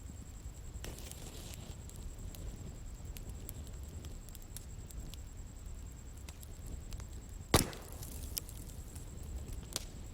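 Wood bonfire crackling, with scattered small pops and one loud sharp pop about three-quarters of the way through, over a low steady rumble.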